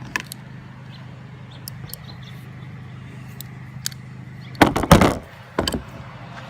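Metal tools and wheelbarrow parts being handled during disassembly: a few light ticks, then a loud cluster of clanks and knocks a little before five seconds in and one more just after, over a steady low hum.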